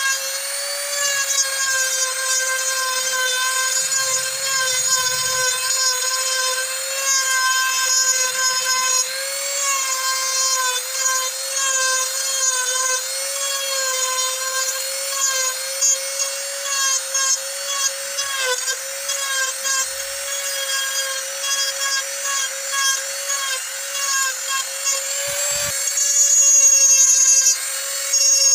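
Handheld corded rotary tool with a carving bit, running at high speed and grinding into ebony wood: a steady high whine whose pitch wavers slightly as the bit bites. It gets louder and harsher near the end.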